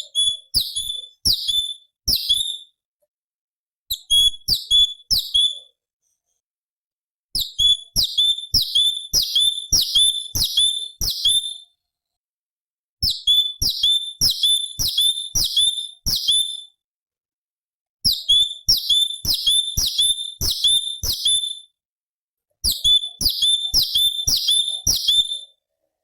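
Cucak cungkok (leafbird) calling in six bursts of sharp repeated notes, about three a second. Each note drops in pitch, and short silent gaps separate the bursts.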